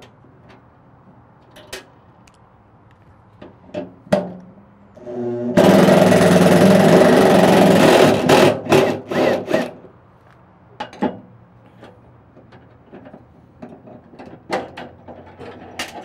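Power drill with a 10 mm socket backing out the bolts of a tailgate scissor latch. The motor spins up about five seconds in and runs hard for over two seconds, then gives a few short trigger pulses. Scattered light clicks and knocks of the latch parts being handled come before and after.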